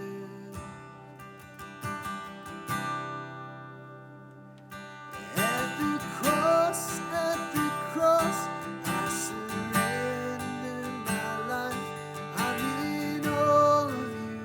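Strummed acoustic guitar playing an instrumental passage of a worship song. It sits softly for the first few seconds, then the music fills out again from about five seconds in.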